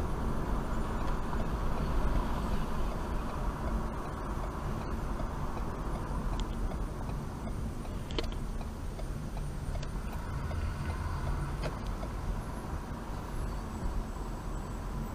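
A car driving along a city street at low speed: a steady rumble of engine and tyre road noise, heard from inside the car.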